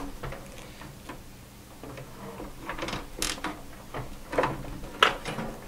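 Power supply and its sleeved cables being handled and shifted inside a steel PC case: scattered clicks, taps and rustles, with the sharpest knock about five seconds in.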